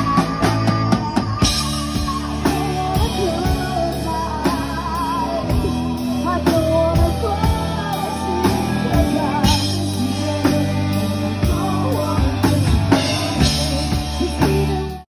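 Live rock band playing: a singer with electric guitar, keyboard and a steady drum-kit beat. The music cuts off abruptly near the end.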